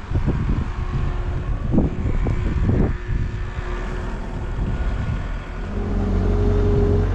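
Gusty wind rumbling and buffeting on the microphone, then about six seconds in a steady motor hum starts and holds.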